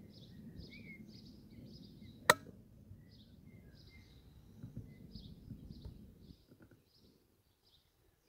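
Small birds chirping over and over, about twice a second, with one sharp, loud click a little over two seconds in.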